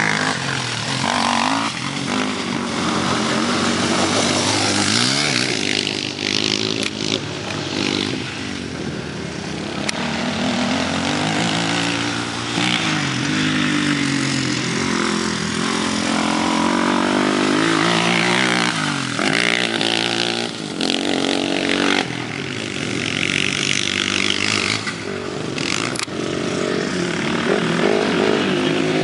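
Kawasaki KFX400 quad's single-cylinder four-stroke engine revving hard and backing off over and over as it accelerates and slows on a dirt track, its pitch rising and falling in repeated sweeps.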